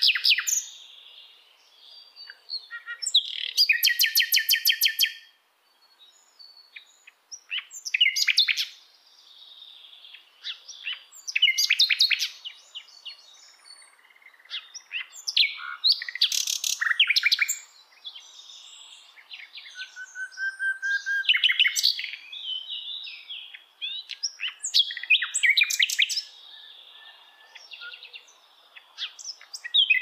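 Common nightingale (sikatan londo) singing: separate loud phrases a few seconds apart, many built of fast runs of repeated notes, with a lower steady whistle about two-thirds of the way through.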